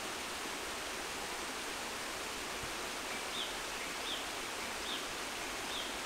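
River water rushing steadily over small rock-step waterfalls, running at low flow. In the second half a short high chirp repeats four times, a little under a second apart.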